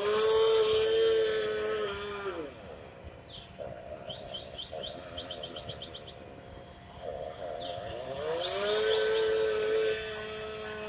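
A power saw cutting into the roof of a burning house, run up twice: each time its pitch rises, holds for about two seconds, then falls away. Between the two runs a bird gives a quick trill of chirps over a steady drone.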